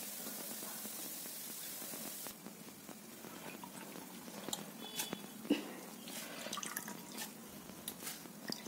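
A steady hiss that cuts off about two seconds in, then wet rice and water dripping and splashing from a steel bowl into a bowl of batter, with scattered small clinks of steel.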